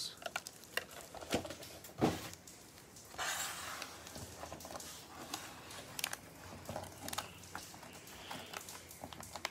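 Cellophane-wrapped trading card packs crinkling and tapping as gloved hands handle and stack them: a run of soft crinkles and light taps, with a longer rustle about three seconds in.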